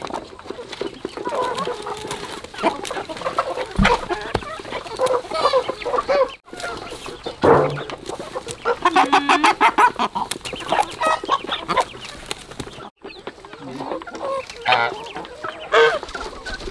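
Chickens clucking and squawking, many short calls overlapping, some in quick runs, with a thump about four seconds in.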